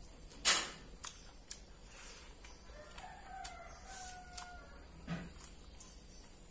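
A rooster crows in the background: one drawn-out crow of about a second and a half, starting about three seconds in. Near the start comes a single sharp crunch of a bite into something crisp, followed by small clicks and smacks of chewing.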